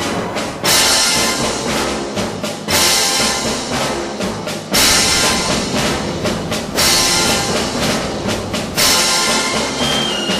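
Dramatic orchestral music with brass and timpani, punctuated by a loud accented hit about every two seconds. A high steady tone comes in near the end.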